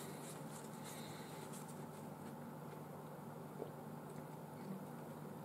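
Quiet room tone: a faint steady hum and hiss, with a few soft clicks in the first couple of seconds.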